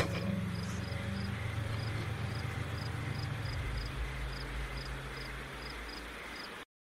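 Crickets chirping in short, regular pulses, a little over two a second, over a low steady hum. A sharp click sounds right at the start and is the loudest thing heard. Everything cuts off suddenly near the end.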